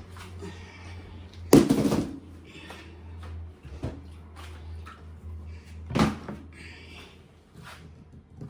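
Kitchen handling sounds: a loud knock or clatter about a second and a half in, a second, smaller one around six seconds, and small clicks between, over a steady low hum.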